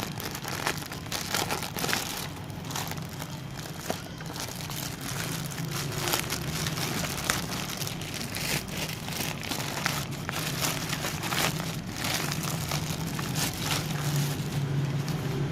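A taped and stapled courier parcel being opened by hand: plastic packaging crinkling and tearing in many small irregular crackles, over a steady low hum.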